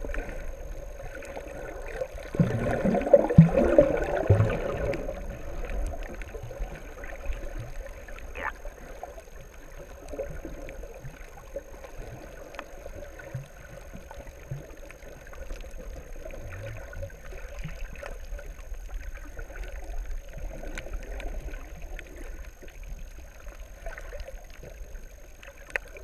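Muffled underwater water noise with faint scattered ticks. A louder bubbling gurgle runs for a couple of seconds a few seconds in.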